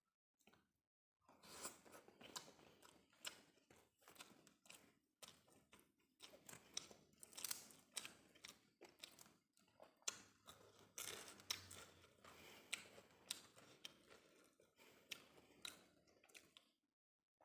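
Quiet, close-up eating sounds: irregular chewing with wet mouth clicks and small crunches, mixed with fingers gathering and pressing steamed rice on a banana leaf. The clicking stops just before the end.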